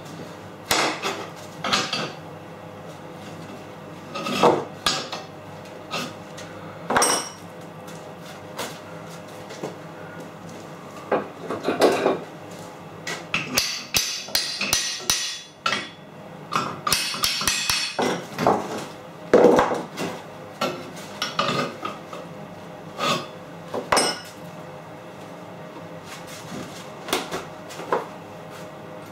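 Steel parts clanking and knocking against each other and on a workbench as they are handled and lined up for welding. The knocks come irregularly, a dozen or so, with two short stretches of rattling clatter about halfway through.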